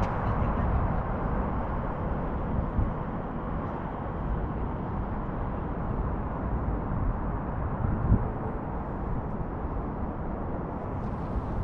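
Steady outdoor city ambience: a low, even rumbling noise with no clear tones, and a short low thump about eight seconds in.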